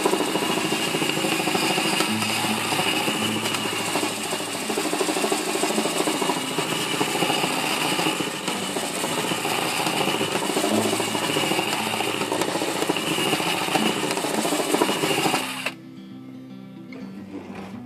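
A cordless drill spins a sandpaper-wrapped rolling-pin drum against a wooden board: the steady whine of the drill motor over the coarse rasp of 80-grit paper sanding the wood. The sanding stops suddenly near the end, leaving acoustic guitar music.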